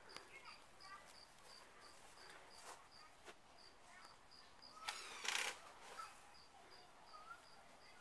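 A cricket chirping steadily, faint and high, at about three chirps a second, with a brief rustle about five seconds in.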